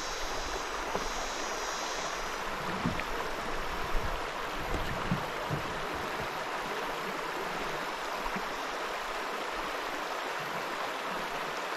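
Shallow river water running over rocks in a riffle, a steady rushing flow, with an insect buzz fading out in the first couple of seconds and a few soft low knocks around the middle.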